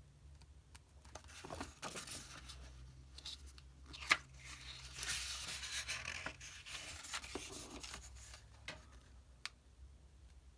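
Paper rustling as the pages of an old, worn booklet are handled and turned, with a sharp paper snap about four seconds in.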